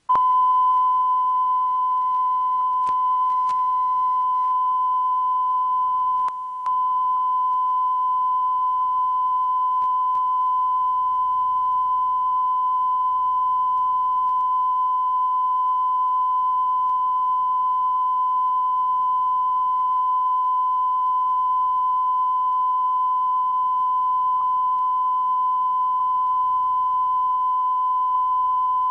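Steady 1 kHz line-up test tone played with colour bars, a single pure sine tone, broken by a brief dropout about six seconds in.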